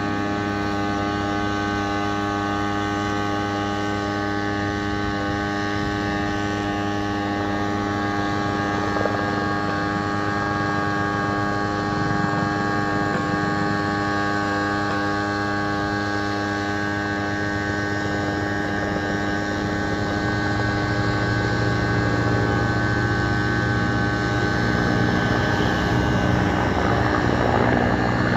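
A steady mechanical drone made of many even tones, growing louder over the last several seconds as a helicopter approaches overhead.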